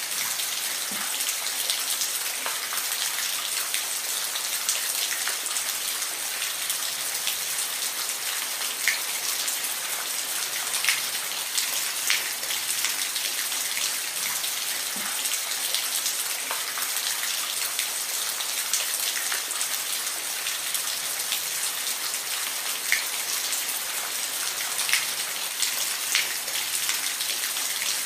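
Steady rain falling, an even hiss with individual drops tapping here and there.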